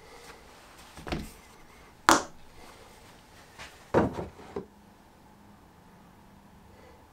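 Wooden workpieces and hand tools knocked and set down on a workbench: a handful of sharp knocks and clicks, the loudest about two seconds in, then a quick run of three a couple of seconds later.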